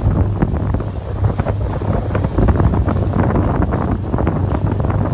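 Heavy wind noise buffeting the microphone, with a loud, irregular low rumble, over water rushing past a moving boat.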